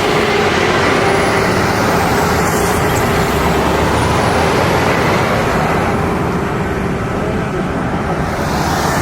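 Loud, steady jet aircraft engine noise with a faint high turbine whine that slowly rises and falls, from a plane moving nearby.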